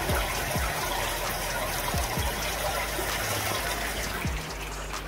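Water of a cave stream running steadily, a rushing that thins near the end, with a few dull low thuds.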